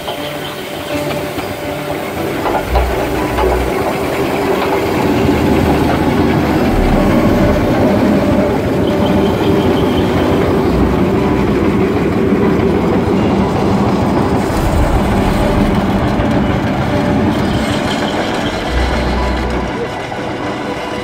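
Steam roller driving slowly past on a gravel road, its steam engine chuffing and the heavy rolls rumbling over the ground. It grows louder as it passes and eases off near the end as it moves away.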